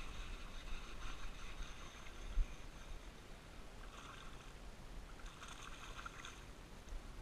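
A hooked largemouth bass thrashing and splashing at the water's surface in short bursts: at the start, about four seconds in, and again about a second and a half later.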